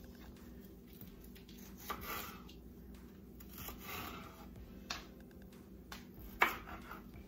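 Knife slicing a red bell pepper into strips on a wooden cutting board: soft cutting sounds with a few sharp knocks of the blade on the board, the loudest a little before the end.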